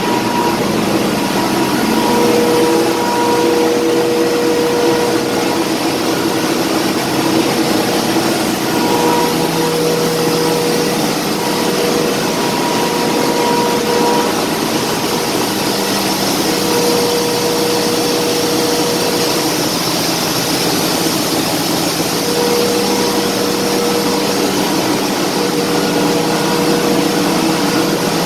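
Ship's engine-room machinery running, a loud, steady din: a dense hiss with several steady humming tones that fade in and out.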